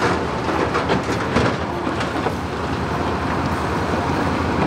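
Shantui crawler bulldozer at work: a diesel engine running under a dense, rattling clatter of steel tracks and loose rock. Rubble is also tumbling from a tipping dump truck.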